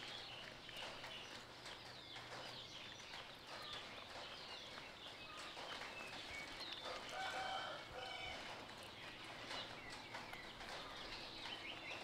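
Faint animal chirps and calls with soft clicks. A longer pitched call comes about seven seconds in.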